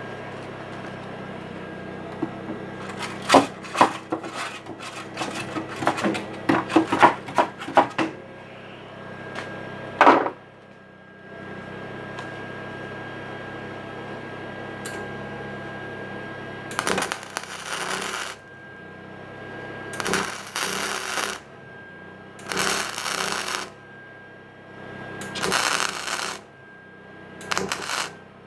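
Flux-core wire welder laying short stitch-weld bursts on thin car-body sheet metal: five crackling bursts of about a second each, with short pauses between, in the second half. Earlier, a quick run of sharp scraping clicks and one loud knock.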